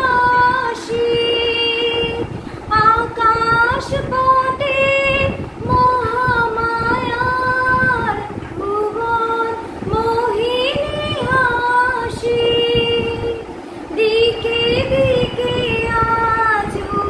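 A woman singing a Bengali song solo. She holds long notes with a slight waver, in phrases broken by short breaths.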